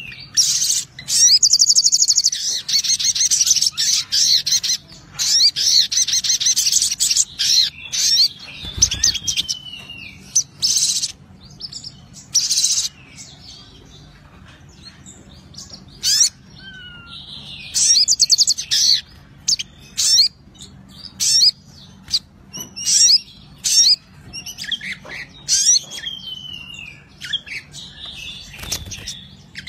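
Caged sunbird singing excitedly in repeated bursts: rapid, high-pitched chattering trills, mixed with a few short descending whistles.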